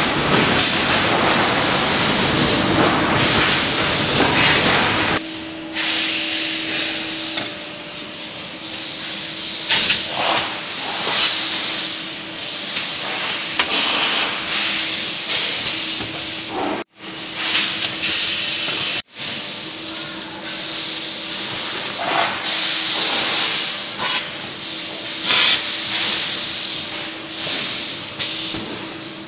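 Tire inner-tube splicing machine at work: a steady electric hum with repeated short hisses of air as its clamps work. For about the first five seconds a louder, denser factory din covers it, then cuts off abruptly.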